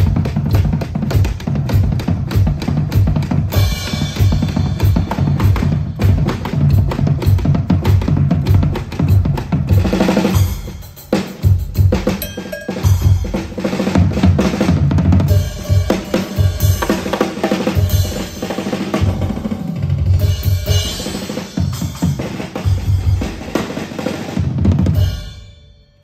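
Semi (hybrid acoustic-electronic) drum kit played hard and fast, with heavy bass drum, snare, cymbals and rolling fills. The playing drops back briefly about eleven seconds in, then dies away near the end.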